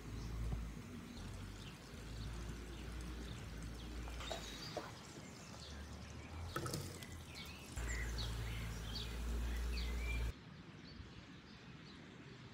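Birds chirping over a low, uneven wind rumble on the microphone, with a brief clatter about six and a half seconds in.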